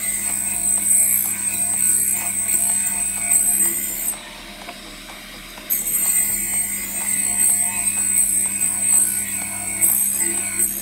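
Electric drill-bit sharpener running with a steady motor hum while its diamond wheel grinds a high-speed-steel drill bit turned in the collet holder, making a high grinding hiss. The grinding stops for about a second and a half midway, then starts again.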